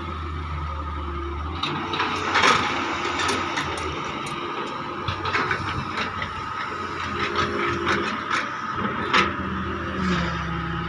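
Doosan DX140 wheeled excavator at work: its diesel engine runs with a steady high whine, the low engine note heavier at the start and again near the end as it digs. Through the middle there is a string of sharp clanks and knocks from the bucket and arm working the soil.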